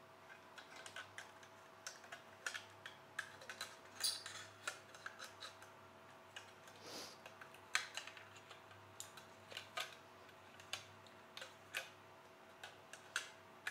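Hands handling the removed bottom cover of an Intel NUC mini PC, with its drive bracket: irregular small clicks and taps of metal and plastic parts, some louder snaps among them.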